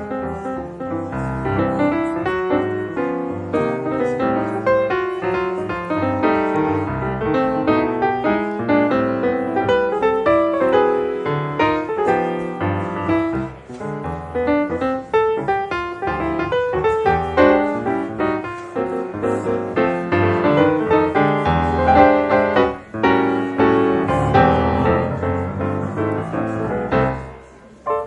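Instrumental music, a quick run of many pitched notes, which drops away suddenly near the end.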